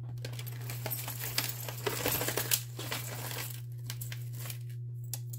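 Crinkling and rustling with small clicks as jewelry is picked through by hand, busiest for the first three seconds or so and then sparse. A steady low hum runs underneath.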